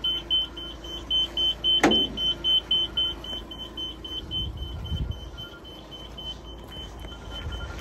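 Electronic warning beeper giving rapid high beeps, about four a second, that fade out after about four and a half seconds. A single sharp knock comes about two seconds in, and a low rumble about five seconds in.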